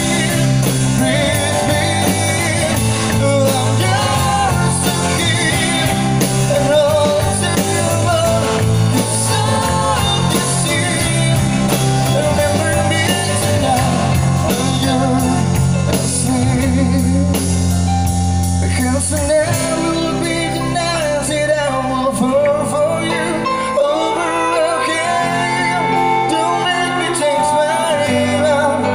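Live band playing a pop-rock ballad: a violin carries the melody over acoustic guitar, electric bass, keyboard and drums. The low end thins out about two-thirds of the way through.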